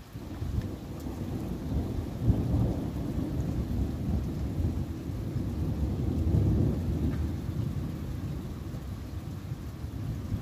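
A long, deep rolling rumble of thunder that starts suddenly, swells about two seconds in and again around six seconds, then slowly dies away.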